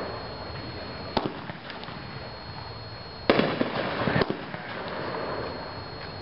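Brothers 'Americana' 500-gram, 37-shot cake firing: a sharp report about a second in, then a louder burst about three seconds in followed by about a second of crackling pops.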